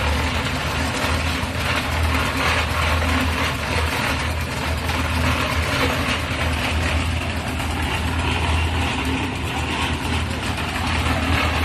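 Engine of concrete-pouring machinery running steadily: a constant low hum with a dense noisy wash over it.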